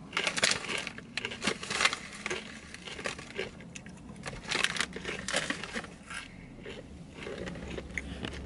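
Potato chip bag crinkling as a hand reaches in, with the crunch of chips being bitten and chewed.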